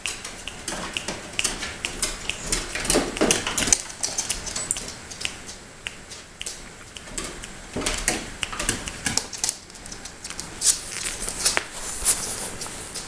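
Small dogs' claws clicking and pattering on hard stairs and floor as they scramble up a staircase: a busy, irregular run of quick ticks, thickest in two spells.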